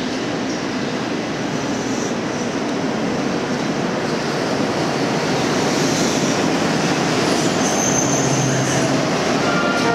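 Tama Toshi Monorail 1000 series straddle-type monorail train pulling into the station and running along the platform, a steady rushing run noise growing louder as it comes alongside. A brief high whine sounds about eight seconds in.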